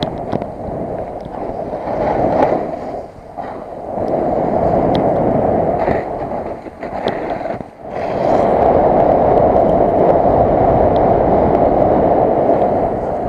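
Wind rushing over the microphone together with the hiss of sliding on snow during a fast downhill freeride run. It dips briefly about three seconds in and again just before eight seconds, then runs on strongly.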